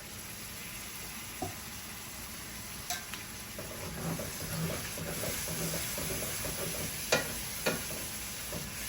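A pan of chicken, onions and freshly added canned tomatoes sizzling on low heat while a utensil stirs and scrapes through it, with a few knocks of the utensil against the pan. The stirring becomes steadier and more rhythmic about halfway through.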